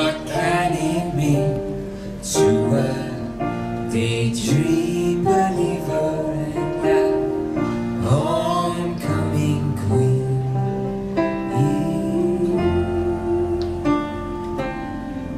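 A woman singing live, accompanying herself on an electric keyboard, with long held notes over sustained chords.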